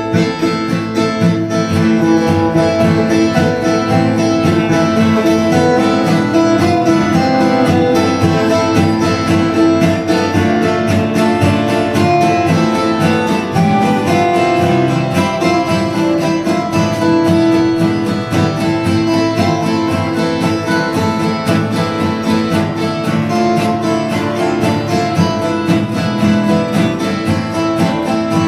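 A small ensemble of acoustic guitars strumming a song together in a steady rhythm.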